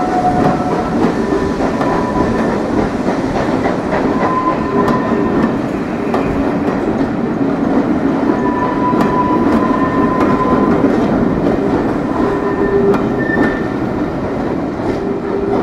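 Train of passenger coaches rolling past, wheels rumbling and clicking over the rail joints, with several brief wheel squeals along the way.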